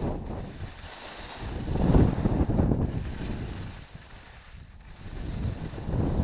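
Wind rushing over the camera's microphone and skis hissing and scraping over hard-packed snow during a downhill ski run. The rush swells and eases with speed and turns, loudest about two seconds in and quietest around four to five seconds in.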